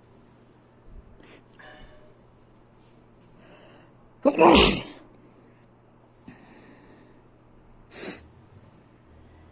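A person sneezing: one loud sneeze about four seconds in, then a shorter, quieter burst near the end.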